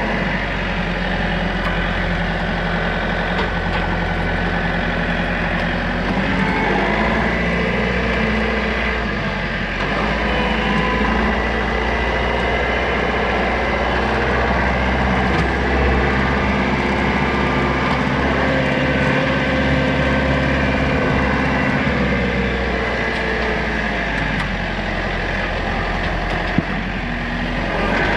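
Rural King RK55 compact tractor's diesel engine running steadily while driving a PTO-powered Woodland Mills WG24 stump grinder. The engine note shifts in pitch a few times.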